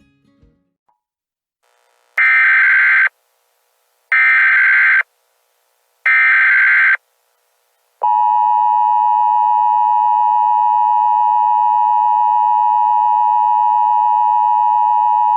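Three Emergency Alert System SAME header data bursts, each about a second long and two seconds apart, signal the start of an alert. About eight seconds in, the EAS two-tone attention signal (853 and 960 Hz) starts and holds steady.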